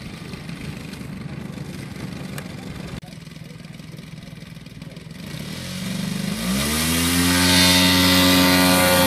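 Radio-controlled model aircraft's propeller engine running at low throttle on the ground, then opened up about six seconds in, its pitch climbing quickly to a steady, loud full-power note for the takeoff run.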